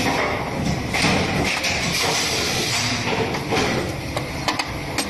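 Handling noise from small threaded cable connectors being screwed onto a row of sockets on a metal machine panel, with a few sharp clicks near the end.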